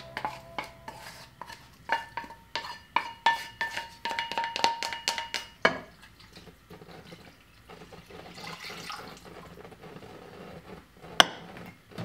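Wooden spatula scraping and knocking fried ground pork out of a frying pan into an earthenware pot, the pan ringing with each tap and ending in one harder knock. Then water pours from a glass pitcher into the pot, and a single sharp click near the end as the gas stove knob is turned.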